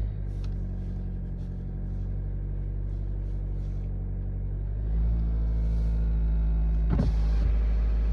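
BMW X3 G01 20d's four-cylinder diesel engine running cold, with the knock that the owner is recording as a cold-start fault. It gets louder about five seconds in, and a sharp click comes near the end.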